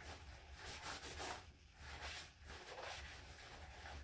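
Faint paper towel rubbing and rustling against resin 3D-printed pieces in a series of irregular strokes, as gloved hands wipe leftover resin off a fresh print.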